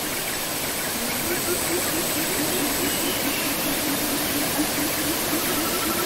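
Water from a wide, many-stranded waterfall falling steadily into a rocky pool: an even, unbroken rush of water.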